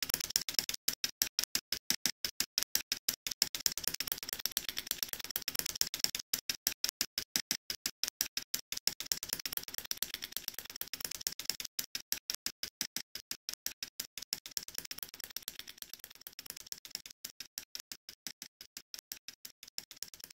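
Bicycle chain clicking against a steel screwdriver shaft held to it, in a rapid, even run of sharp ticks with a few brief breaks.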